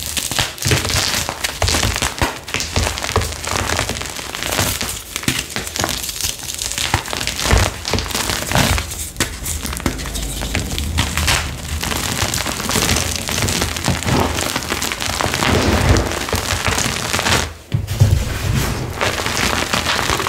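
Hands squeezing and crumbling blocks of flaky, citric-acid-dyed gym chalk: a continuous dry crunching and crackling as the chalk breaks apart, with a brief pause near the end.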